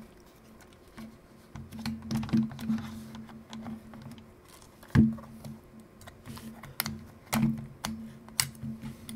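Plastic body of a Nikon One Touch L35AF2 compact film camera handled and turned over: irregular light clicks and taps of plastic, with a sharper knock about five seconds in and two more later.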